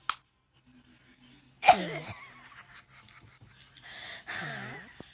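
A person wheezing out loud twice: a sudden, loud wheeze a little under two seconds in that drops in pitch, and a longer one near the end.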